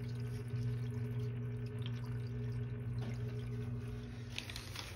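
Tank filter pump humming steadily, with water trickling and a few light drips. The hum's higher tones drop out near the end.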